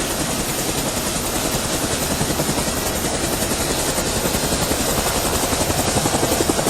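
Helicopter running with its main rotor turning at speed near the end of a startup: a steady engine and rotor noise with a fast, even blade chop that grows a little stronger in the second half.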